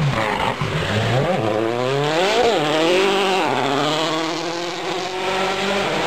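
Citroën C4 WRC rally car's turbocharged 2.0-litre four-cylinder engine at full throttle as the car passes: the revs climb, drop sharply about two and a half seconds in, then hold high.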